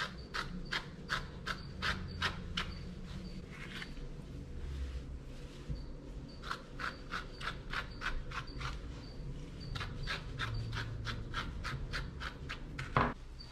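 Quick repeated strokes of a slicker brush raking through a dog's coat, about three a second, pausing briefly partway through, with one louder stroke near the end.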